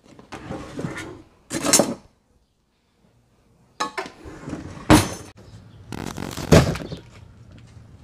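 A kitchen drawer pulled open, then metal utensils and knives clattering as a hand rummages through it, with a couple of sharp knocks. The sounds break off for about two seconds in the middle.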